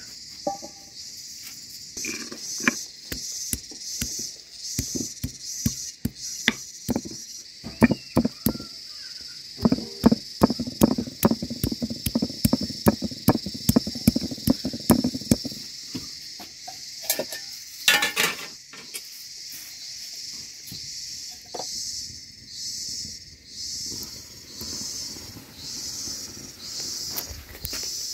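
Garlic cloves being pounded and crushed with a hand-held stone on a flat grinding stone: a run of sharp knocks, densest and loudest about eight to fifteen seconds in, then thinning out. Under it runs a steady high chirring of insects that pulses in the second half.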